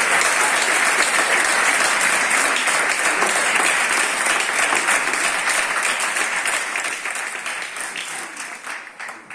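Audience applauding, dense at first and then thinning and fading away over the last three seconds or so.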